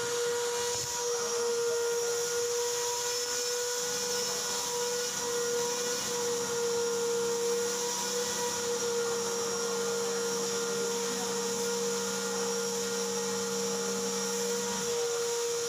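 Steady machine whine at a constant pitch, joined by a lower hum that comes in about four seconds in and cuts off near the end.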